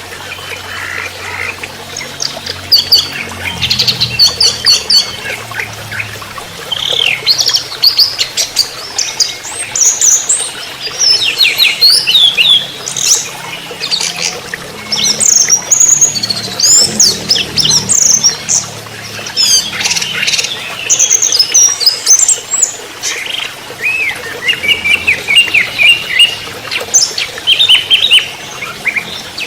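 Orange-headed thrush singing a rapid, varied song in the fast, near-unbroken 'trotol' style: quick runs of short whistled and chattering notes, phrase after phrase with only brief pauses.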